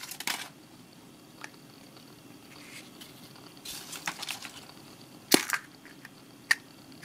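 Surprise egg being opened by hand: a little foil crinkling, then scattered sharp cracks and snaps, the loudest about five and a half seconds in and another a second later.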